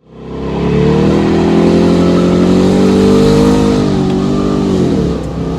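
Car engine running hard, fading in at the start, its note holding and climbing slightly before falling away about five seconds in as the throttle eases.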